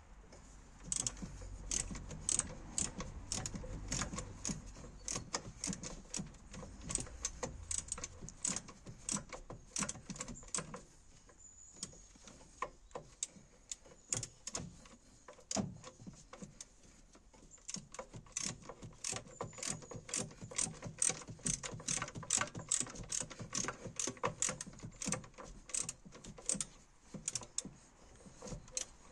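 Ratchet wrench clicking in quick runs as a bolt is turned, with short pauses between strokes and two quieter stretches about 11 and 16 seconds in.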